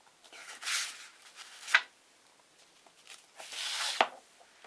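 Paper instruction sheet rustling as it is handled and unfolded to the next pages: two swishes, about a second in and again near the end, each ending in a sharp crackle of the paper.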